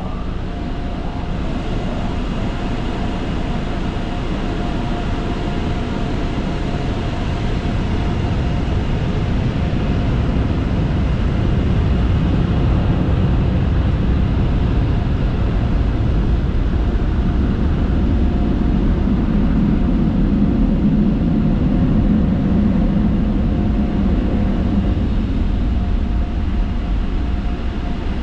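Automatic soft-touch car wash machinery heard from inside the car: a loud, steady roar with a constant hum, growing louder about a third of the way in.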